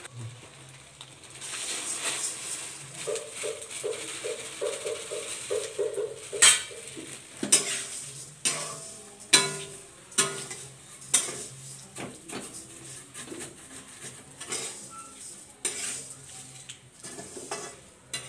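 Metal spatula scraping and knocking against a metal kadai as vermicelli is stir-fried in it, over a light steady sizzle. The scrapes come in a quick run, then give way to sharp clacks about once a second.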